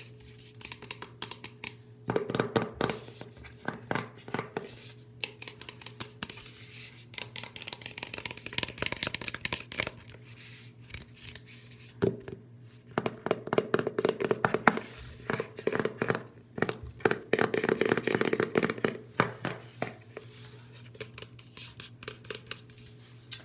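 Fingernails tapping and scratching on a lidded cosmetic jar, in quick runs of light clicks with short pauses between, on the side and on the lid.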